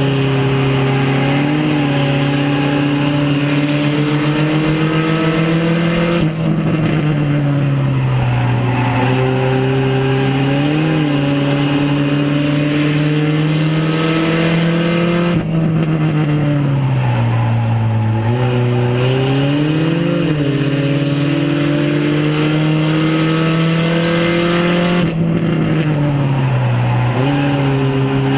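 Mini stock race car's engine heard from inside the cabin, running hard at high revs. Its pitch sags and then climbs back up about every ten seconds as the car lifts through the turns and accelerates out again, with a sharp break in the sound at the start of each dip.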